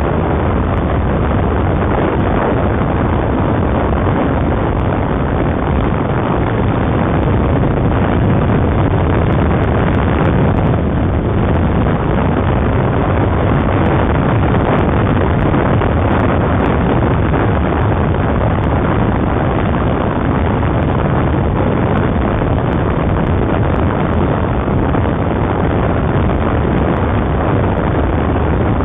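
Steady rushing, rumbling noise from a bike-mounted camera moving along a road: wind on the microphone mixed with ride and road noise.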